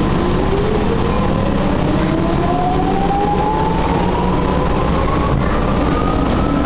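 Tokyu 8500 series electric train heard from inside the car, accelerating in a subway tunnel: the traction motor whine rises steadily in pitch over the constant rumble of wheels on rail.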